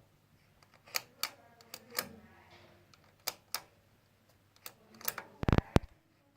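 A series of separate sharp clicks and knocks, a few seconds apart, then a quick cluster of louder clicks with a heavy thump about five and a half seconds in.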